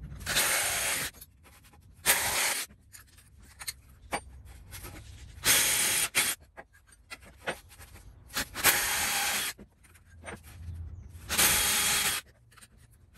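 Hole saw on a cordless drill cutting through a wooden board: a rasping scrape in five short bursts, each under about a second, with quiet gaps between.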